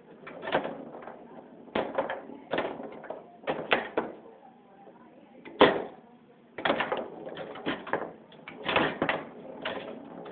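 Foosball game in play: irregular sharp knocks and clacks as the ball is struck by the rod-mounted players and bangs off the table, the loudest a hard knock a little past halfway.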